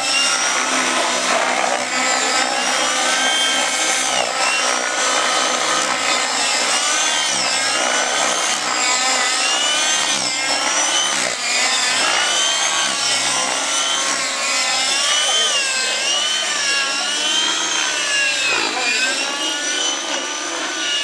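Radio-controlled model helicopters flying aerobatics: a high mechanical whine made of several overlapping tones that keep swooping up and down in pitch as the machines manoeuvre.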